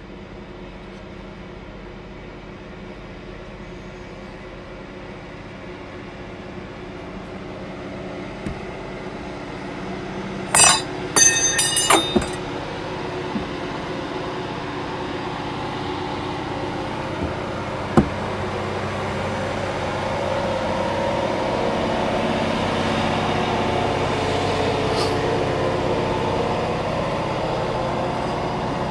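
Honeybee colony buzzing from an open hive, a steady drone that swells louder in the second half. A quick cluster of sharp clicks and knocks comes about ten to twelve seconds in, and one more click a few seconds later.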